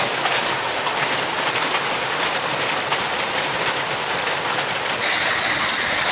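Heavy rain pouring down: a dense, steady hiss peppered with many small sharp impacts. A faint, steady high tone joins about five seconds in.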